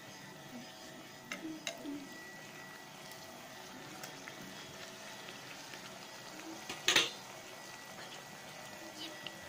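Bhatura deep-frying in hot oil in a metal kadai, a steady sizzle. Metal utensils clink against the pan a few times between one and two seconds in, and there is one loud clatter about seven seconds in.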